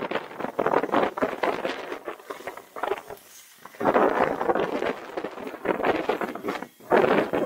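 Ski edges scraping and skidding across an icy piste through a series of braking turns, a loud rasping scrape that breaks off briefly about three seconds in and again near the end. The hard, scraping sound is the sign of ice on the slope.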